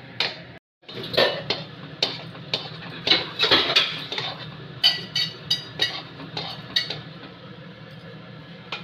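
Metal spoon scraping and clinking against a steel kadhai as khoya is stirred while it roasts: irregular scrapes and knocks, with a few ringing metallic clinks past the middle, over a steady low hum.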